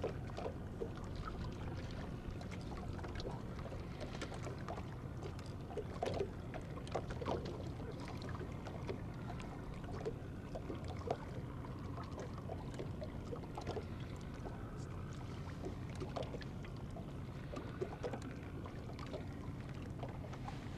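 Small waves lapping against the side of a boat's hull, with irregular light slaps and knocks, over a steady low hum.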